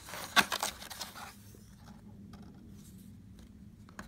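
Paper sheet and cardboard box tray rustling and scraping as they are handled, with a cluster of rustles in the first second or so, then only faint handling.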